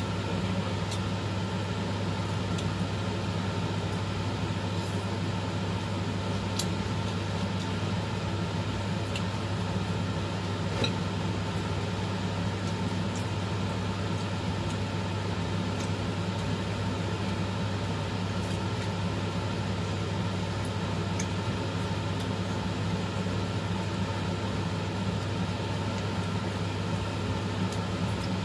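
A steady low machine hum that does not change, with a few faint light clicks.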